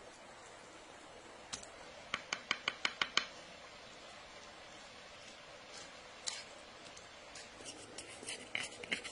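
Table knife scraping and clicking against crusty bread while spreading sauce on a split loaf: a quick run of about seven sharp clicks about two seconds in, a single click later, and scattered scrapes and clicks near the end.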